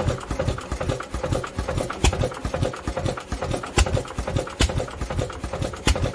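International Type M 3 HP single-cylinder hit-and-miss engine running, a steady rapid mechanical clatter broken by sharp pops every second or two as it fires. The engine is running with a stuck crankcase breather.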